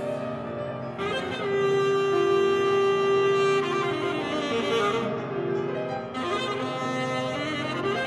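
Alto saxophone and piano playing classical chamber music: the saxophone holds a long note from about a second and a half in, then moves through quicker notes before settling on another held note, over piano accompaniment.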